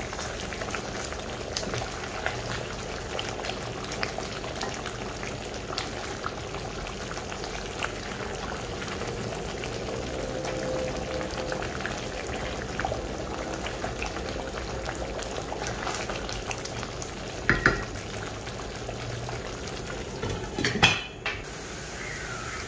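Thick coconut-milk curry gravy bubbling at a boil in a stainless steel wok while a wooden spatula stirs it and scrapes the pan. A couple of louder knocks come in the last few seconds.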